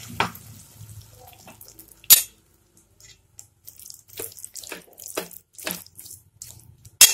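Metal spoon stirring thick yam masala in a metal pot: a string of short scrapes and clinks of the spoon against the pot, with two sharper, louder knocks about two seconds in and near the end.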